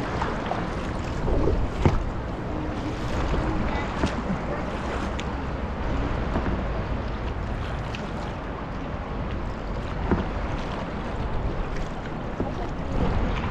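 Steady rush of river water mixed with wind buffeting the microphone, with a few short knocks or splashes, such as a paddle against the water or the boat, about two, four and ten seconds in.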